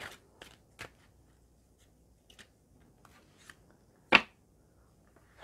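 A deck of oracle cards being handled, giving scattered light card clicks, with one sharp, louder snap about four seconds in.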